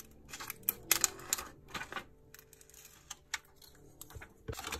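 Close-up handling sounds of a pair of scissors and a small piece of cut material in the hands: a string of irregular crisp clicks and short rustles, busiest in the first two seconds and again just before the end.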